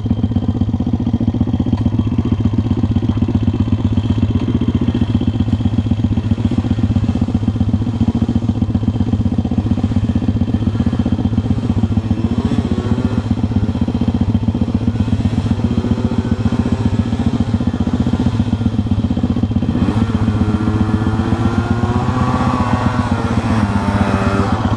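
MRF 140 RC pitbike's single-cylinder four-stroke engine idling steadily close by. From about twelve seconds in, a second motorcycle engine revs up and down in the background, getting louder near the end.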